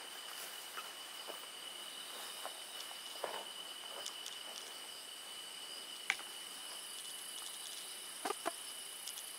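Night insect chorus of crickets, several steady high-pitched trills going on together. A few short knocks break through it, the sharpest about six seconds in and a close pair near the end.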